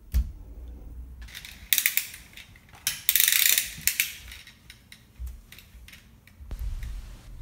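A small toy car's pull-back gears ratcheting in short bursts as it is worked back and forth on the wooden floor. The loudest burst is a dense, high rattle about three seconds in. There is a low thump just at the start.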